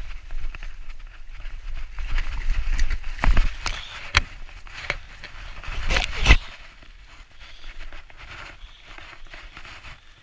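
Mountain bike rattling over a rough dirt trail, then a crash: a run of heavy knocks and thuds from about three to six seconds in, the loudest just after six seconds, as bike and rider go down into the undergrowth. The sound turns much quieter after that.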